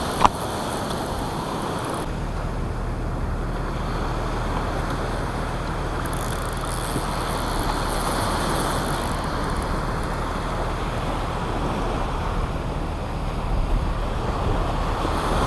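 Surf washing with wind buffeting the microphone, and a vehicle engine running with a low steady hum from about two seconds in. A single sharp click just after the start.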